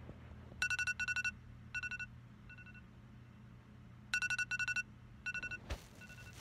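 Phone alarm ringing: groups of trilling electronic beeps at one pitch, the same phrase repeating about every three and a half seconds. Near the end, a soft thump and a rustle of bedding.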